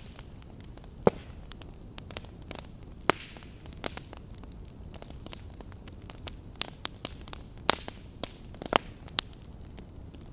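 Campfire crackling: irregular sharp pops and snaps over a low steady rumble and a faint high hiss, with the loudest pops about a second in and near the end.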